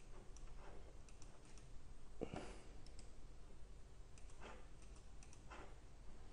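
Faint, scattered computer mouse clicks, with one slightly louder soft knock a little over two seconds in, over a low steady hum.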